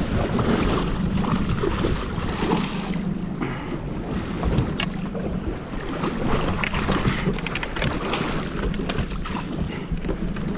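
Wind buffeting the microphone over choppy sea water splashing around a small fishing boat, with scattered knocks and splashes.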